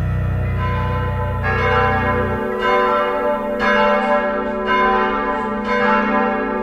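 Church bells ringing, with a new stroke sounding roughly every second and the tones of several bells overlapping.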